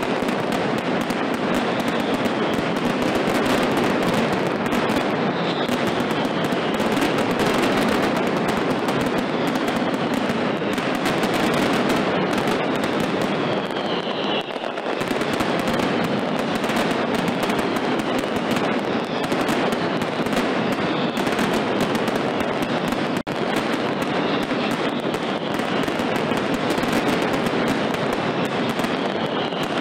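Mascletà: strings of firecrackers going off in a dense, unbroken crackle of rapid bangs, with a few falling whistles.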